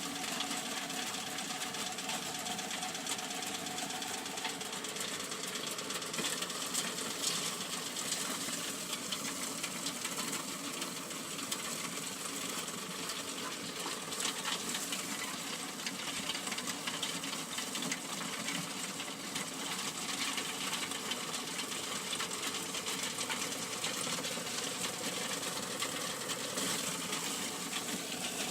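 A small machine running steadily with a fast, even clatter.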